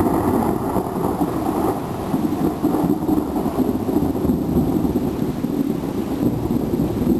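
Thunder rumbling in one long, steady low roll, with no sharp crack.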